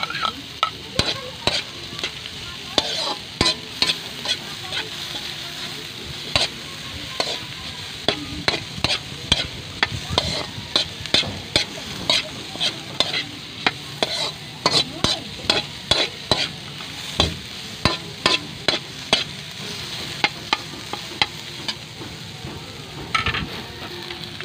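A metal spoon clinking and scraping against an aluminium wok as dried anchovies, onion and ginger are stir-fried. Frequent irregular clinks sit over a steady sizzle of frying.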